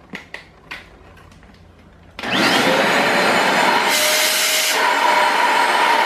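A few light handling clicks, then about two seconds in the Multilaser HO03 1000 W stick/handheld vacuum cleaner switches on, its motor spinning up to a steady whine over loud rushing air. Its nozzle is held against the wall and into the gaps, loading the motor, and the hiss of air sharpens briefly about four seconds in.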